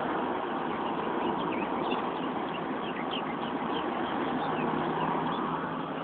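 Steady background noise with a faint constant hum, and many short bird chirps scattered throughout.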